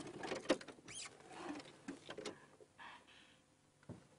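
Faint, irregular rustling and small clicks, with a short rising chirp about a second in and a sharper knock near the end.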